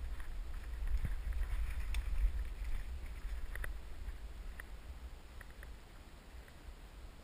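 Low wind rumble on a body-worn camera's microphone, with scattered crackles of twigs and dry leaves from moving through woodland undergrowth. The rumble is strongest in the first few seconds and eases off after about four seconds.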